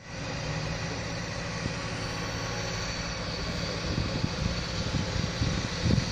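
Diesel engine of a wheeled excavator running steadily, with a few low thumps in the second half.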